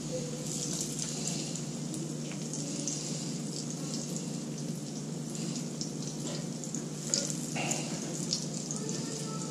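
Battered burbot pieces sizzling in hot oil and butter in a cast-iron skillet, a steady crackling fry. A couple of light knocks come about seven seconds in.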